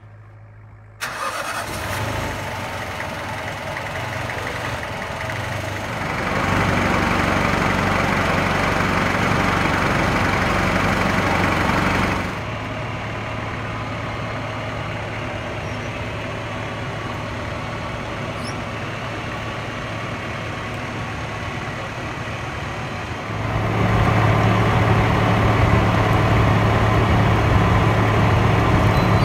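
Inboard engine of a wooden boat running steadily under way, a low hum with a rush of wind and water over it. The sound rises suddenly about a second in, and it grows louder for a stretch a fifth of the way in and again near the end.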